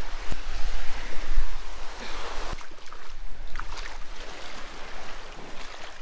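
Small sea waves washing on a sandy shore, with wind buffeting the microphone, loudest in the first second and a half.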